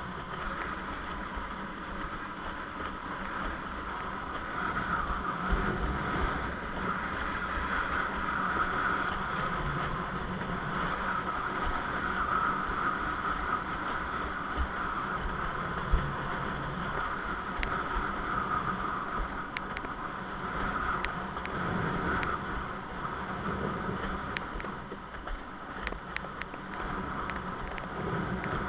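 Fanatic Ultra Cat longboard windsurfer sailing: a steady rush of wind and water along the board, with a few short sharp slaps of chop in the second half.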